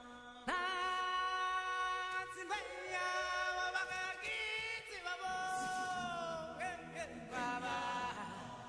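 Music: a Zulu-language chant, a strong male lead voice swooping up into a sung line about half a second in, with choir voices answering.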